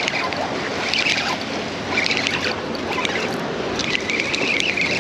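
Steady rush of wind and sea surf, with a few short, higher-pitched scratchy sounds about every second or two.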